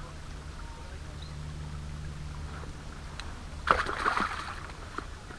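A sudden short splash of water about three and a half seconds in, as a caught asp is let go back into the river, over a steady low hum.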